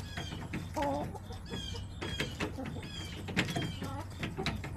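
Backyard hens clucking and calling, with a short pitched call about a second in, among brief high chirps and scattered sharp clicks.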